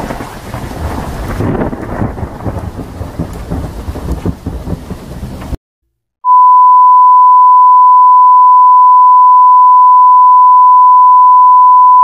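Thunderstorm sound effect: rain with low rumbling thunder, cutting off suddenly about five and a half seconds in. After a brief gap, a loud, steady, pure single-pitch TV test tone (a sine-wave beep) holds for about six seconds.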